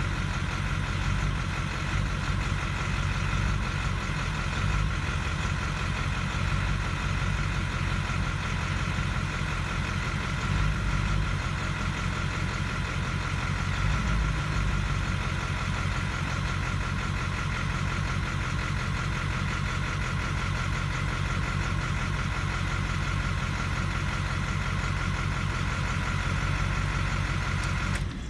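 Ford 7.3L Power Stroke V8 turbo diesel idling, heard from inside the cab, with its injection control pressure swinging erratically. The idle is steady with a few slight swells, and the engine cuts off suddenly near the end.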